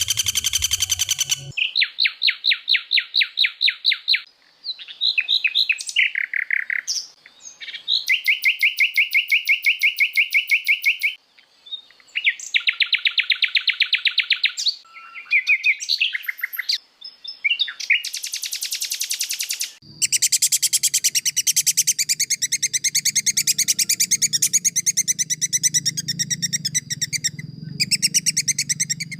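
A medley of recorded songbird calls spliced together for cage-bird training: fast trills and rapid strings of chirps that change abruptly every few seconds, then from about twenty seconds in one continuous song over a low hum.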